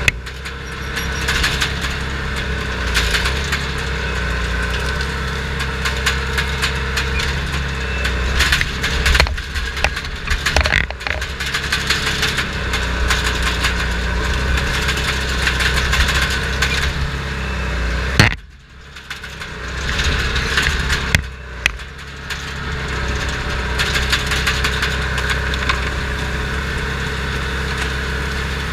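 Crawler dozer's diesel engine running under load, heard from inside the cab, with track clatter and the cracking and splintering of brush and wood as the dozer pushes through. About 18 seconds in there is a sharp bang, the engine sound falls away briefly, then it builds back up.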